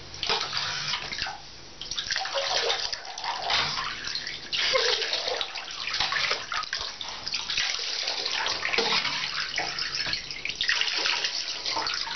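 Water splashing and sloshing in a bathtub in uneven surges, as a cat is washed by hand in shallow water.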